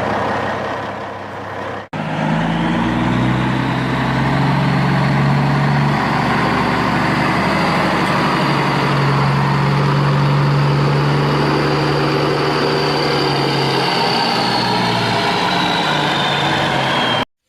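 A truck engine sound runs steadily, its low hum shifting in pitch now and then. It breaks off for an instant about two seconds in, then resumes and cuts off abruptly near the end.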